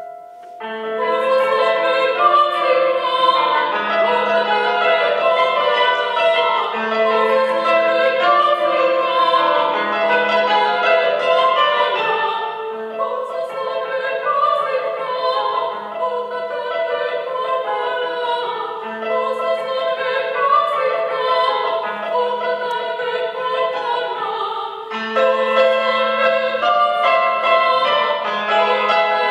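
A woman sings in classical, operatic style, accompanied by a cimbalom (Central European hammered dulcimer) played with hammers. The music comes in about half a second in, eases a little around the middle, and returns fuller near the end.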